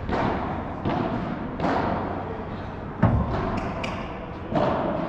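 Padel rally: the ball struck by rackets and bouncing off the court and glass walls, sharp echoing hits under a second apart. A heavier thud comes about three seconds in.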